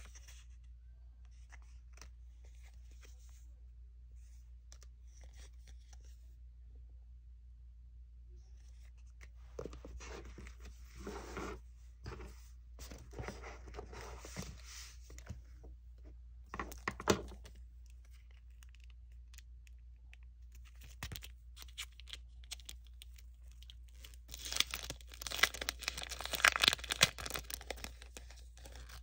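Paper stickers, card and clear plastic packaging handled: scattered faint clicks at first, then stretches of rustling and crinkling, with a sharp crackle about halfway and the loudest crinkling near the end.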